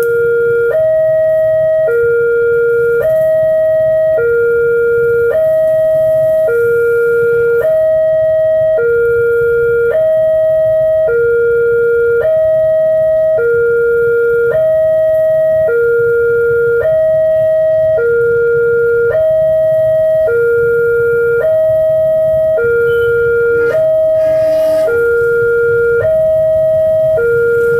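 Railway level-crossing warning alarm sounding: two electronic tones alternating, each held about a second, signalling that a train is approaching. A steady low rumble runs underneath.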